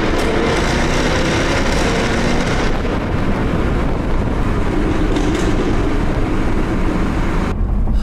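Jaguar F-Type R's 5.0-litre supercharged V8 under way in a tunnel, heard from inside the cabin: a loud, steady engine and exhaust note with road rumble, its pitch rising and falling with the throttle. The sound breaks off abruptly shortly before the end.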